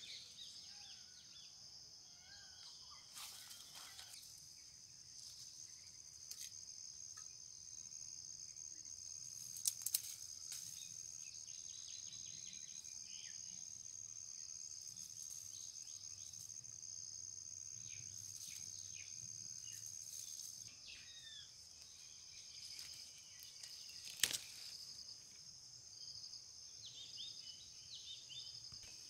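Faint rural outdoor ambience: a steady, high insect drone throughout, with scattered short bird chirps and a few sharp clicks.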